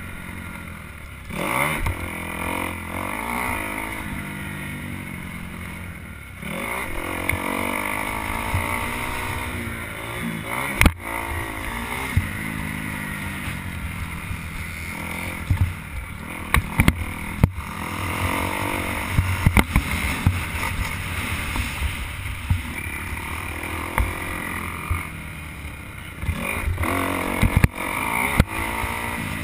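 Dirt bike engine, heard close from the rider's helmet camera, revving up and falling back over and over as the bike is ridden around a motocross track, with sharp knocks from bumps in the track.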